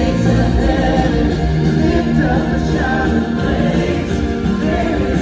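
Live church worship band playing a song: several singers over acoustic guitar and keyboard, with a full band beneath, loud and steady.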